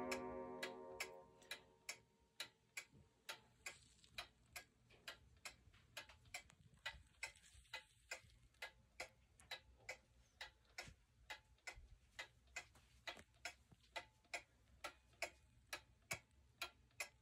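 Antique pendulum wall clock ticking steadily, about three faint ticks a second. A ringing tone dies away in the first second or so.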